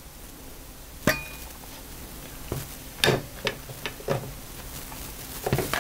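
Handling noise from an Agfa Isolette folding camera body and a small glass focusing screen moved about on a work mat. A sharp click about a second in, then several lighter knocks and clinks.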